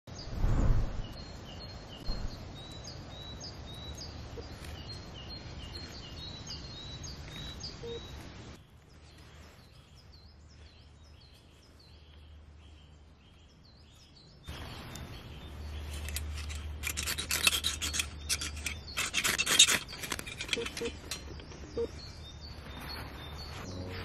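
Songbirds singing with repeated high chirps, then, about two-thirds of the way in, a run of quick rasping scrapes of a ferro rod struck to light frayed jute tinder on a solid-fuel tablet in a folding pocket stove.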